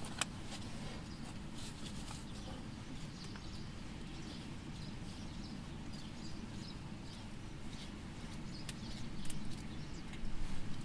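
Steady low background rumble heard inside a car cabin, with faint bird chirps scattered throughout and a few light knocks near the end.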